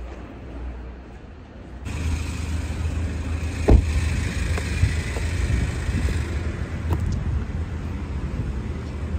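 Steady low rumble of street traffic, growing louder about two seconds in, with one sharp thump partway through.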